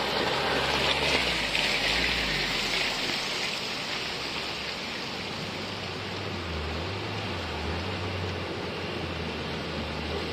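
Steady rush of a shallow river, with a louder splashing hiss in the first few seconds as a Suzuki Jimny drives through the water. In the second half a low engine hum from a Jimny crossing the ford comes in under the water noise.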